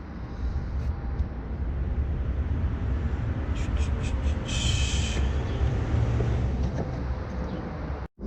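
Metal-on-metal clicks and a short scrape about halfway through as a new engine mount is worked into place, over a steady low rumble.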